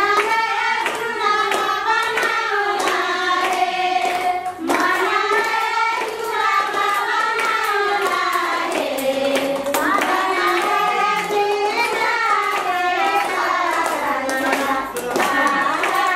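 A song sung with hands clapping along in a steady rhythm.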